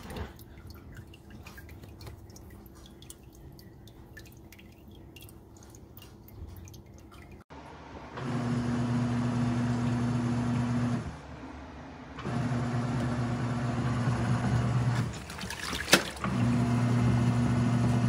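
Nictemaw portable top-load washing machine agitating a load in its wash cycle: its motor hums steadily for about three seconds, stops for a second or so and starts again, three times over, with a sharp click during the second pause. Before that, for about the first seven seconds, only faint drips and ticks around the drain hoses.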